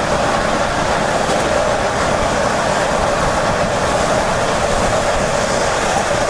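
Train running at speed, heard from on board: an even, unbroken rolling noise of wheels on rail.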